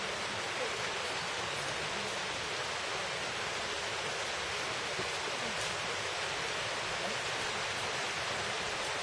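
Mountain valley stream rushing, a steady, unbroken sound of running water.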